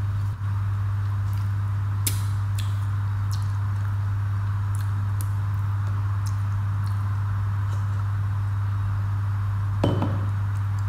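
Eating by hand from crockery: a few faint clicks of fingers on a ceramic plate, then near the end one sharper clink against a small bowl. A steady low hum runs underneath.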